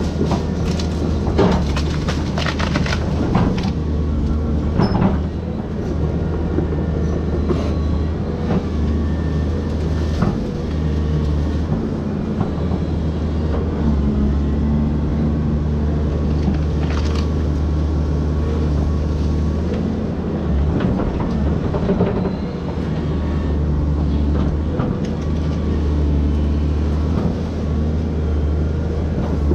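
Volvo excavator's diesel engine running steadily under hydraulic load, heard from on the machine, while the arm pushes over and rips out citrus trees. Sharp cracks and knocks of breaking wood and the bucket striking, several in the first few seconds and more scattered through.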